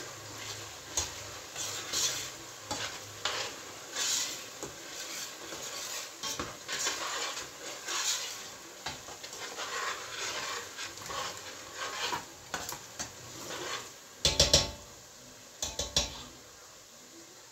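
A spoon stirring and scraping around a stainless steel pot of food frying in oil, with steady sizzling under roughly one scrape a second. About fourteen seconds in there are a few louder clanks of metal spoon against pot, repeated just before the end.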